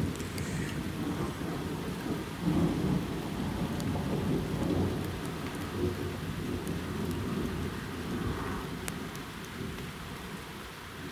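Distant thunder rolling in a long low rumble that swells about two to five seconds in and then slowly dies away.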